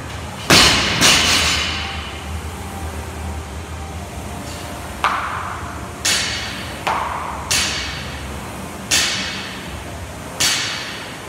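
Loaded barbell with bumper plates dropped from overhead onto rubber gym flooring: a loud bang about half a second in and a bounce just after. Then about six softer thuds, roughly one every second or two, of an athlete doing burpees, dropping to the floor and landing from jumps beside the bar.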